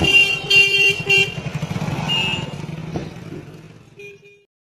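Street traffic: a vehicle horn honking in repeated short blasts over the low, steady running of engines, the whole fading out about four seconds in.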